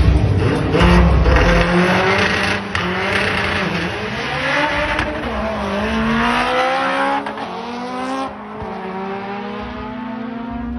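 Turbocharged four-cylinder K20-engined Honda Civic accelerating hard on a drag-strip pass. The engine note climbs and drops back at each upshift, and it is quieter and duller from about eight seconds in.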